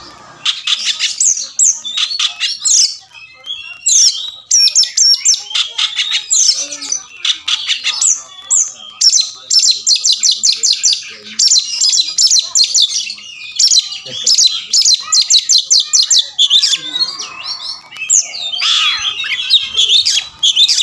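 Oriental magpie-robin singing a loud, varied song of quick whistled and chattering phrases. Several runs are rapid trains of repeated notes, about ten a second, separated by brief pauses.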